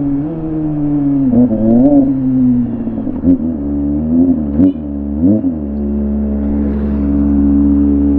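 Kawasaki ZX25R's 250cc inline-four with an aftermarket exhaust, running at steady high revs with several brief dips and rises in pitch as the throttle changes, then held steady for the second half.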